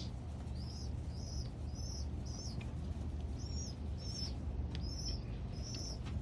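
Pigeon squab giving short, high-pitched begging peeps, about two a second with a brief pause midway, as it is fed by a parent pigeon. A steady low hum runs underneath.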